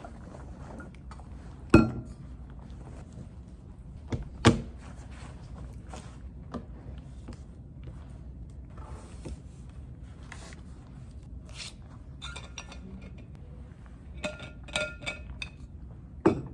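Objects being handled and set down on a desk: a few sharp knocks and thunks with small clicks between them, a patch of light clinks shortly before the end, and the loudest knock near the end as a water bottle is put down.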